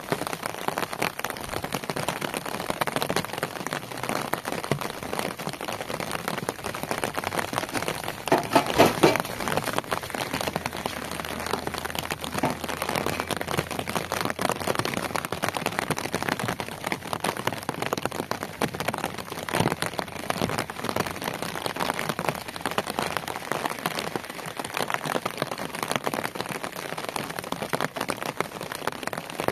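Steady rain pattering on hard ground and wet surfaces. Now and then concrete blocks knock and scrape against a metal wheelbarrow, loudest about nine seconds in.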